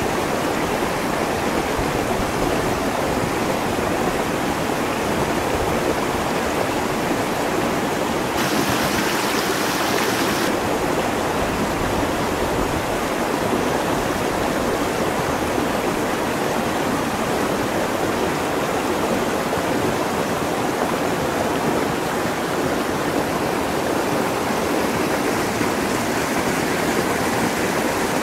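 Shallow rocky stream rushing steadily over stones and small rapids. The water is a little hissier for a couple of seconds about eight seconds in.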